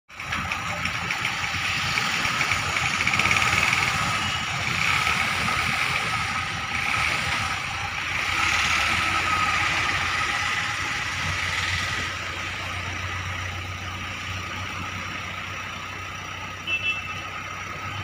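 JCB 3DX backhoe loader's diesel engine running as the machine drives, with a steady whine over the engine note. The engine eases off about twelve seconds in, and two short high beeps sound near the end.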